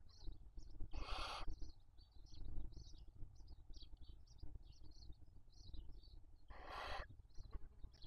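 Barn owl chicks giving harsh begging hisses as they are fed: two hisses about half a second long, one about a second in and one near the end. Short high chirps come and go throughout.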